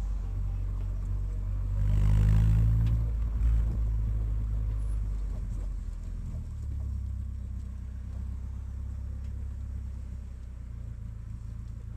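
Chevrolet Vectra's engine rumbling through its exhaust: a brief rev about two seconds in, then it settles back to a steady, low idle.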